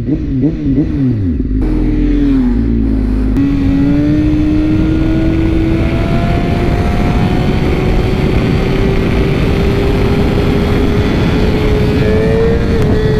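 BMW S1000RR inline-four engine pulling hard in a single gear, its note climbing slowly and steadily without a gear change, while the bike is held up on its rear wheel in a wheelie. Heavy wind rush over the camera mic lies under the engine.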